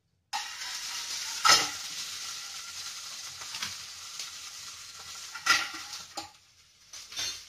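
Hot mustard-oil tempering with fenugreek seeds sizzling steadily, with two sharp clinks of a metal spoon about a second and a half in and near the five-and-a-half-second mark; the sizzle dies down near the end.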